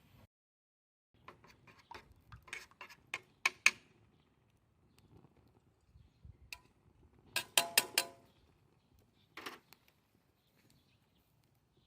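Handling sounds: a run of light knocks and clicks, then a quick cluster of metallic clinks with a brief ring, and a short scrape near the end.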